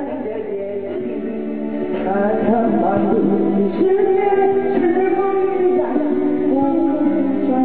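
Music with a singing voice over instrumental accompaniment, swelling louder about two seconds in.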